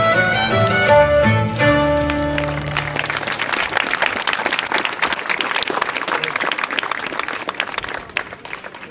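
Live folk dance music ends on a final held note about two and a half seconds in. An audience then applauds, and the clapping fades out near the end.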